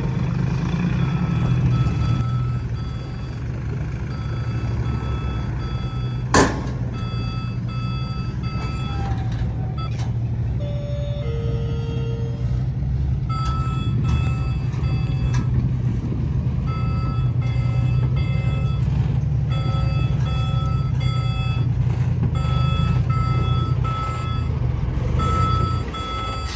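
Diesel engine of heavy earthmoving machinery running steadily, with a reversing alarm beeping over and over, pausing for a few seconds in the middle. A single sharp knock about six seconds in.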